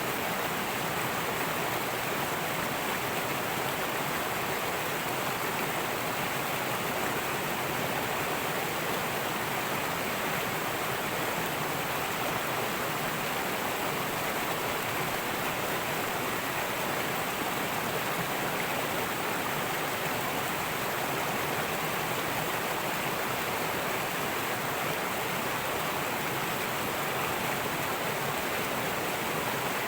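Fast-flowing river rushing and babbling over rocks, a steady unbroken water sound.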